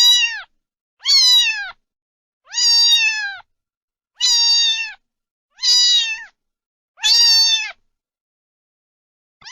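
A domestic cat meowing over and over, six meows about a second and a half apart, each a single call that drops in pitch at its end.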